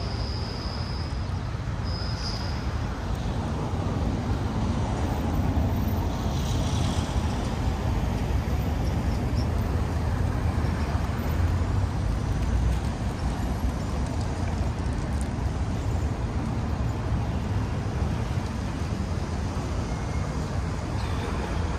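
City street traffic: a steady rumble of passing road vehicles, with a brief high-pitched squeal twice in the first few seconds.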